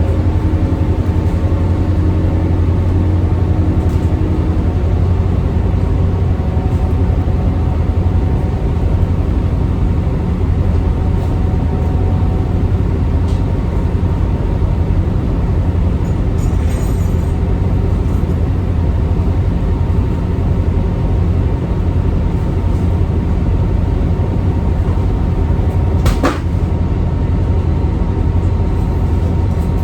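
Steady low drone of a towboat's engines running, an unchanging hum, with one sharp click about 26 seconds in.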